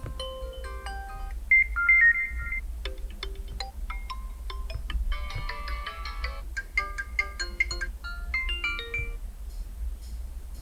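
POCO M5 phone ringtones playing: short electronic melodic phrases of bright chime-like notes, loudest briefly about one and a half to two and a half seconds in.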